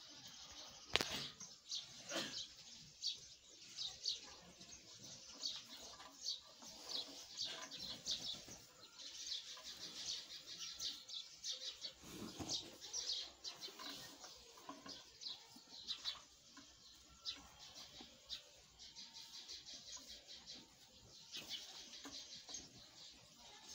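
Small birds chirping in rapid, irregular bursts. Water buffalo calves feed from a stone trough beneath them, with a few knocks near the start.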